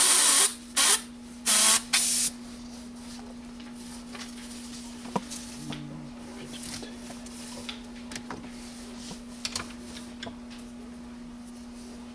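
Airbrush spraying paint in four short bursts of hiss in the first two seconds or so, then a steady low hum with a few faint clicks.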